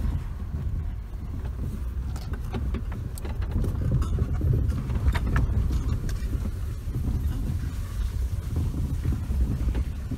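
Car cabin sound while driving slowly over a bumpy dirt track: a steady low rumble from the engine and tyres, with scattered clicks and knocks about two to five seconds in.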